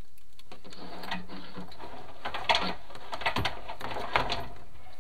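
Chimney inspection camera and its push rod scraping and knocking against the creosote-coated flue walls as they move through the flue: a run of rough scrapes and clicks, loudest about two and a half seconds in and again near four seconds.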